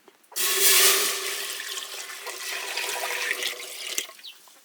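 Something tipped into a hot pan: a loud sizzle that starts suddenly and slowly dies away over a few seconds.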